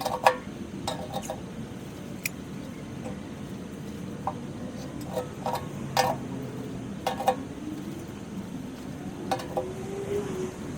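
Metal parts of a portable sheet-metal camping stove clinking and knocking as it is put together, about a dozen short metallic clanks spread irregularly over a steady low background rumble.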